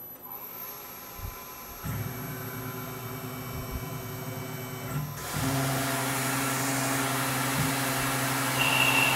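Tormach PCNC 1100 mill spindle running with a steady motor hum, coming in about two seconds in and growing louder and steadier around five seconds in, as the boring head turns down into the hole.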